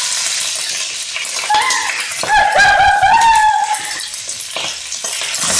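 Vegetables frying in oil in a pan, a steady sizzle. A high-pitched voice sounds twice in the middle, sung or called.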